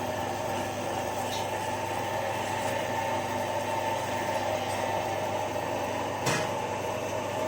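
Cassava (tapioca) flour processing machine running with a steady hum, with one short knock about six seconds in.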